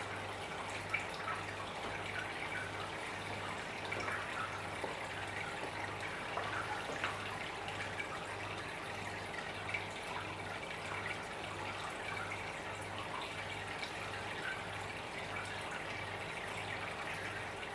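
Aquarium water trickling and dripping steadily, as from a filter outflow, with small splashes over a low hum that pulses a little under twice a second.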